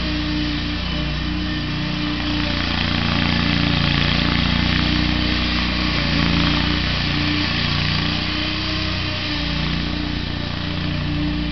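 Toro Z zero-turn mower's engine running steadily while it tows a pull-behind dethatcher across the lawn. It grows a little louder in the middle, then eases back.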